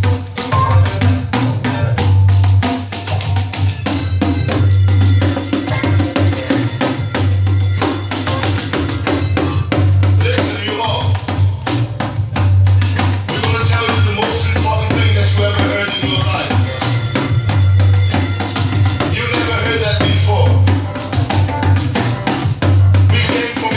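A 12-inch pandeiro with an old nylon head played in a fast, steady rhythm of jingle and head strikes, over a recorded song with a strong bass line.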